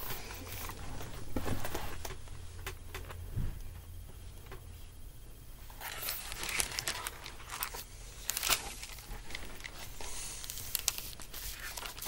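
Rustling and scraping of a hardcover picture book being handled close to the microphone, its pages and cover shifting as it is held up and moved about. The rustles come in scattered bunches, fewest in the middle and thickest in the second half.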